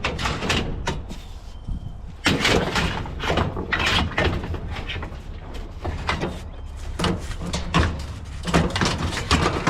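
A chair being forced into a pile of scrap metal on a trailer: repeated irregular knocks, scrapes and rattles as it is shoved and wedged into place.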